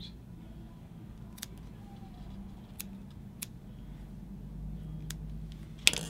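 Sparse, sharp little clicks from small steel fly-tying scissors and vise being handled, about five spread over the stretch, the last one louder just before the end, over a low steady hum.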